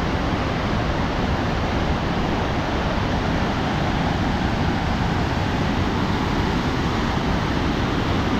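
Kootenai Falls on the Kootenai River rushing, a steady, unbroken noise of falling and churning water.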